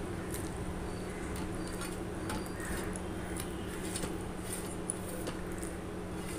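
Eating by hand: fingers squishing curry-soaked food and working a chicken leg bone on a steel plate, with scattered small wet clicks and smacks over a steady low hum.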